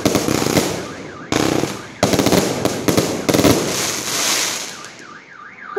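A 250-shot fireworks cake firing rapid bangs and crackles, with fresh volleys about a second and two seconds in. The shots die away after about three and a half seconds, leaving a fading crackle and a warbling alarm tone near the end.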